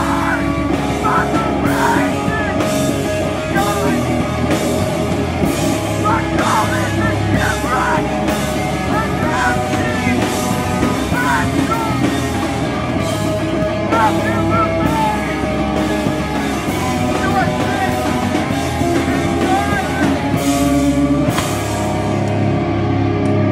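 Hardcore punk band playing loud and live: distorted electric guitars, bass and a drum kit.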